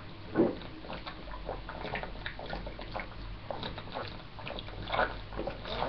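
A man gulping sparkling grape juice from the bottle: a run of short wet swallowing sounds, the loudest about half a second in.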